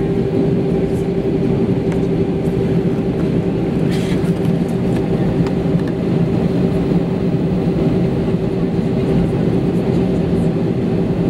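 Airbus A320 jet engines at low power while taxiing, heard from inside the cabin: a steady hum with a constant tone over a rushing noise.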